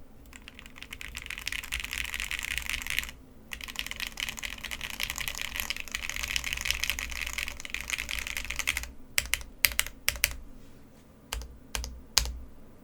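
Fast typing on a Mr. Suit TKL custom mechanical keyboard with SP-Star NaNa switches, an aluminium plate and ePBT keycaps, with no foam dampening. There is a short pause about three seconds in. The fast run ends near nine seconds, and it is followed by a handful of single, louder key strikes.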